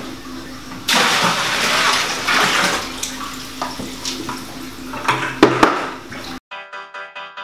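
Water gushing into a glass aquarium as it is refilled, starting about a second in, with a few knocks near the end. It cuts abruptly to background music with a steady beat for the last second.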